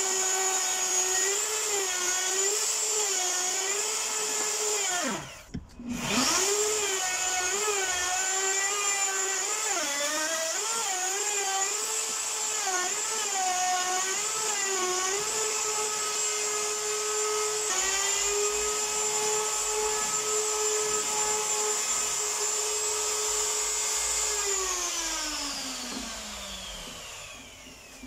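Electric router running at high speed as it trims the veneer skin of a hollow-core door flush with the edge, its pitch wavering as it cuts. About five seconds in it cuts out and spins back up, and near the end it is switched off and winds down in a falling whine.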